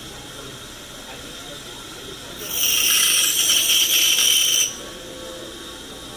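Pegas scroll band saw's fine blade cutting through a small piece of wood: a loud hiss that starts suddenly about two and a half seconds in, lasts a little over two seconds, and cuts off suddenly.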